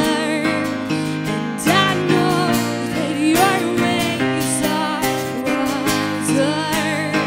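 Live duet: a woman and a man singing together, with vibrato on the held notes, accompanied by strummed acoustic guitar and electric keyboard.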